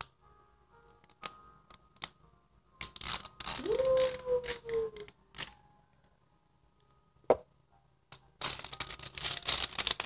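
Plastic shrink-wrap being torn and peeled off a jar of aloe vera gel: scattered clicks, then bursts of crackling and tearing, one about three seconds in and another starting near the end.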